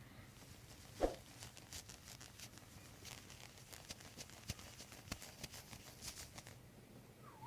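Faint rustling and small clicks of hands moving over a patient's clothing on a treatment table while palpating the back and hips, with one soft thump about a second in.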